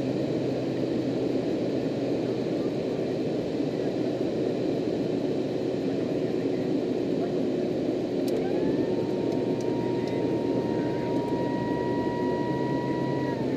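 Steady cockpit drone of a Beechcraft King Air 200GT in flight on approach: its twin PT6A turboprop engines and propellers, with airflow noise. About eight seconds in a high whine rises, holds steady for about five seconds, and falls away near the end.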